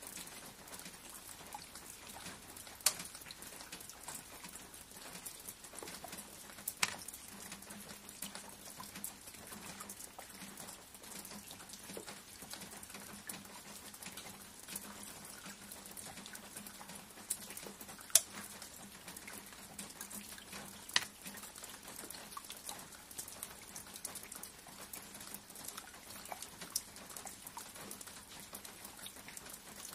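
Faint rain ambience: a steady hiss with scattered sharp drips, a handful of them louder.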